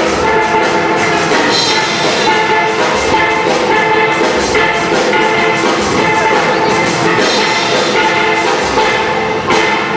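Steel band playing: many steel pans ringing out melody and chords over percussion, loud and continuous.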